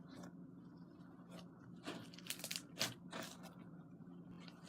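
Slime packed with foam beads being squished and kneaded by hand, giving a few faint crunchy crackles about two to three and a half seconds in.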